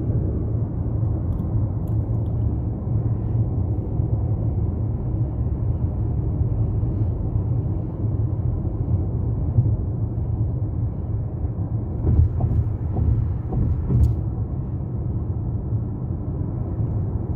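Steady low road and engine rumble inside a car's cabin while it drives at highway speed, with a few light knocks in the second half.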